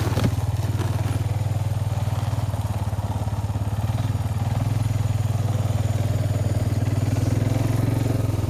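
ATV engine running steadily at low revs, an even low pulsing drone that holds the same level throughout.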